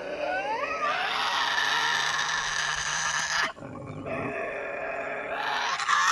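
Tasmanian devil screeching and growling: a harsh, wavering cry, cut by a short low grunt a little past halfway, then rising again near the end.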